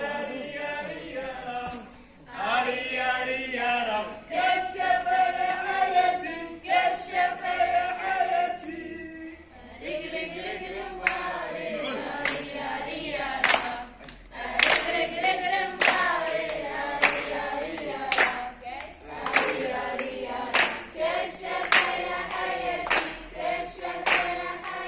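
A group of young scouts singing a song together in unison, joined about ten seconds in by hand clapping in time, roughly one to two claps a second.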